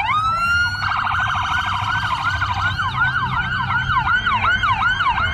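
Police patrol car electronic sirens. A wail rises in the first second, then a fast warble, then a repeating yelp of about three to four sweeps a second, over a low rumble.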